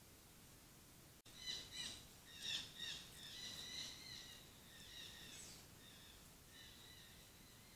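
Birds calling: a run of high chirping calls starting a little over a second in, loudest for the first couple of seconds, then softer calls trailing on.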